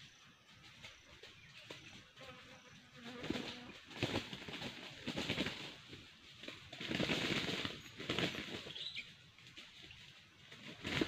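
Junglefowl-cross chickens foraging in dry leaf litter: bursts of rustling and scratching that start about three seconds in and grow louder around four seconds, seven to eight seconds and again near the end.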